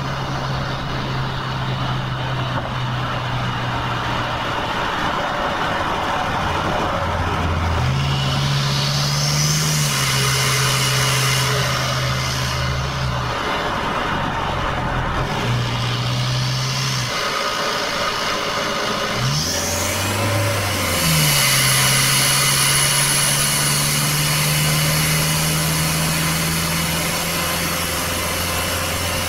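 Toyota 2KD 2.5-litre four-cylinder turbodiesel running hard at highway speed, heard from inside the cabin with steady road noise. Its low note steps up and down in pitch several times as the throttle and gears change.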